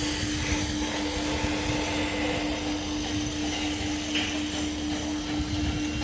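A machine running steadily, a constant hum over a rough rumble.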